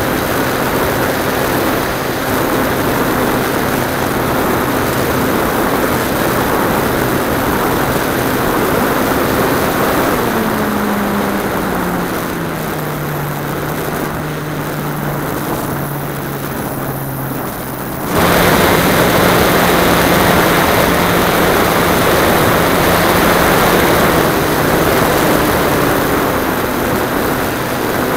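Model aeroplane's motor and propeller running in flight, heard from on board with wind rush over the airframe. About ten seconds in, the motor's pitch drops as the throttle comes back. About eighteen seconds in, it jumps back up and gets louder as the throttle opens again.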